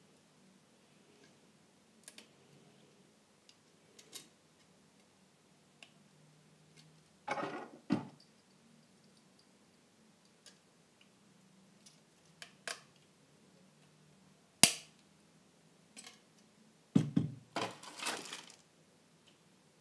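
Hands handling a boxed plastic model airliner and its packaging: scattered light clicks and taps, a rustle about seven seconds in, one sharp click a little before halfway through the second half that is the loudest, and a cluster of rustling and clattering near the end.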